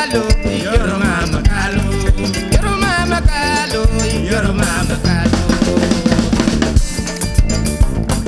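Live West African band music: djembe hand-drum strokes in a steady rhythm over electric bass and kora, with a wavering melody line on top.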